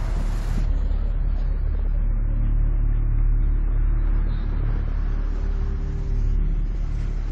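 Road traffic with motor scooters: a steady low rumble of engines, with a brighter hiss that cuts off abruptly under a second in.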